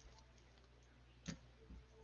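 Near silence, with one faint click a little over a second in and a softer tick just after, from trading cards being handled.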